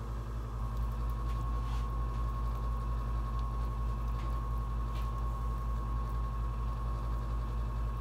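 A steady low machine hum with a constant high whine running over it. A few faint scrapes come through, from a kitchen knife spreading ricotta over pizza dough.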